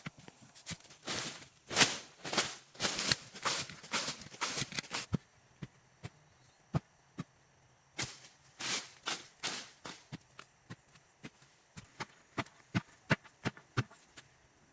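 Irregular knocks and clicks, with two spells of rustling, scraping noise: one in the first few seconds and another about eight seconds in.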